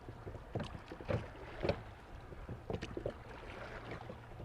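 Drift boat on a fast river: a steady low rush of water with irregular short knocks and splashes, from oars and water working against the boat.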